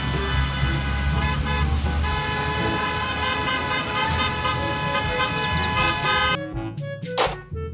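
Several school bus horns sounding together in a long, steady, overlapping blare over the low rumble of the buses' engines. About six seconds in it cuts off abruptly to a short brass music jingle.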